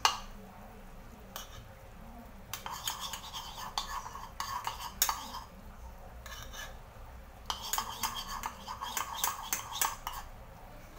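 A metal spoon stirring cornstarch slurry in a small bowl, clinking rapidly against the sides. It comes in two spells of a couple of seconds each, with a short pause between.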